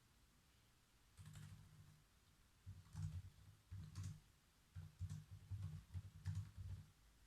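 Computer keyboard being typed on in short, uneven bursts of faint key clicks, each press with a dull thud, with brief pauses between runs.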